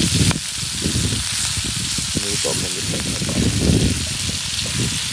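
Sliced onions and yellow peppers sizzling steadily in a frying pan, stirred with a wooden spatula.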